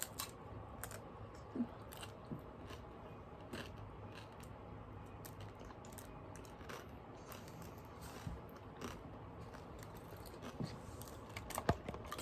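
Faint, irregular crunching and clicking of a person biting and chewing a frozen fruit roll-up wrapped around ice cream, the stiff frozen roll-up crackling between the teeth.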